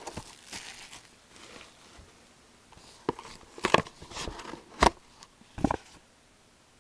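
Hands opening a sealed trading-card box: faint rustling, then four or five sharp clicks and knocks in the second half as the box and its wrapping are worked open.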